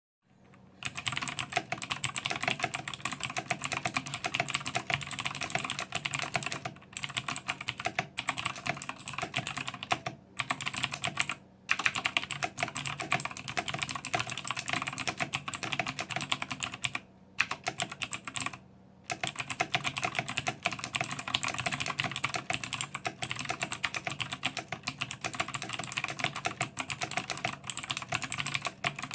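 Fast typing on a HAVIT HV-KB366L mechanical keyboard with clicky Outemu Blue switches: a dense, continuous run of keystroke clicks, broken by a few short pauses.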